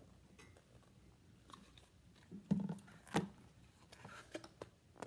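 Hardcover picture book being handled and its pages turned, with small paper clicks and two soft knocks a little past halfway through.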